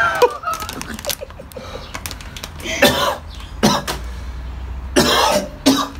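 A man coughing and hacking in several short bouts, his mouth and throat burning from an extremely spicy Cheeto.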